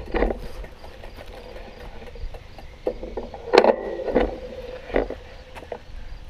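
A few scattered knocks and clatters, the loudest about three and a half seconds in, from someone moving about and handling things beside a wooden shed.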